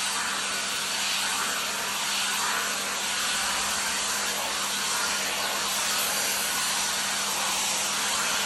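Shark FlexStyle hot air styler blowing through its paddle brush attachment as it dries wet hair: a steady whoosh of air over a low motor hum, even throughout.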